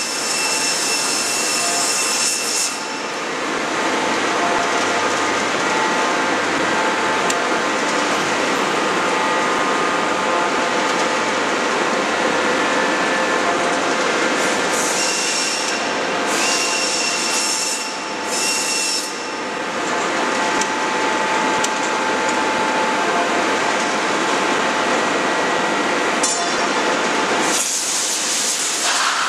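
Steady, loud running noise of a 16-ton hydraulic closed-die forging hammer and its hydraulic system, with several whining tones held throughout. Bursts of hissing spray come at the start, again about halfway through, and near the end.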